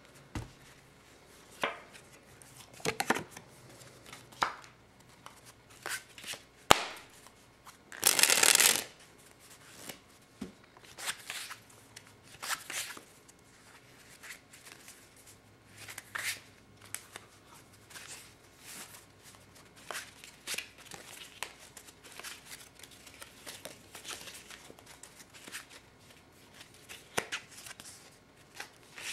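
A deck of Infinitas playing cards being handled in cardistry flourishes: scattered sharp card clicks and short rustles as packets are cut and fanned, with one longer rustling burst about eight seconds in.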